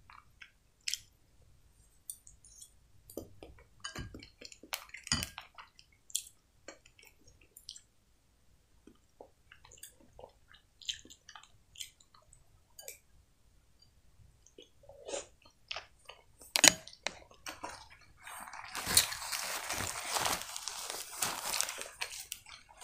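Close-miked eating of solyanka soup: scattered wet chewing and mouth sounds with occasional light clicks of a metal spoon. In the last few seconds a paper napkin rustles steadily as it is used.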